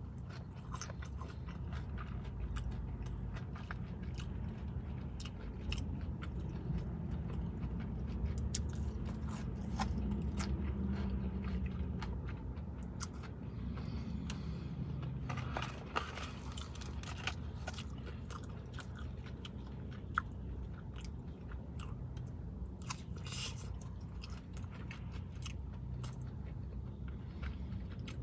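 Close-up chewing of breaded fried chicken nuggets dipped in sauce, with many small, sharp crunches.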